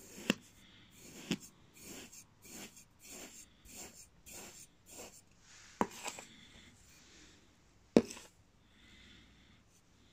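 Metal knife slicing through kinetic sand: soft, crumbly scraping crunches, about two to three a second through the middle, broken by a few sharp clicks of the blade, the loudest about eight seconds in.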